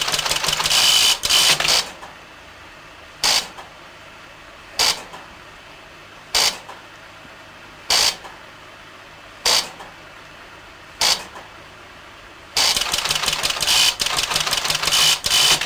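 The Colossus computer's electric typewriter printer printing out results: a rapid clatter of type strikes, then single clacks about every second and a half, then another rapid clatter near the end, over the steady running noise of the machine.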